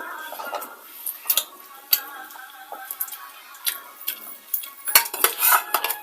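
Metal utensils clinking and scraping against dishes and pots in irregular sharp knocks, busiest near the end.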